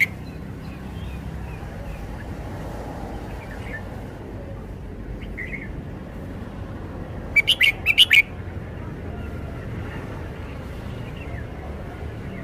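Red-whiskered bulbul singing: a quick burst of loud, sharp, clear notes about two-thirds of the way through, with a few faint chirps before and after, over a steady low background rumble.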